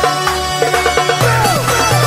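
Background music: a pulsing bass line under a melody, with a run of falling, sliding notes from about halfway in.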